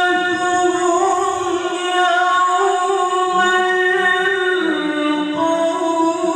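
A male qari chanting Qur'an recitation (tilawah) in one long, ornamented held note, which steps down to a lower pitch about three-quarters of the way through.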